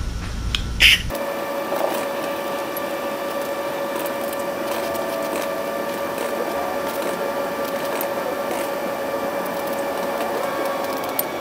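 A steady machine hum with a droning tone runs through. A short hiss of aerosol carburetor cleaner spray comes about a second in.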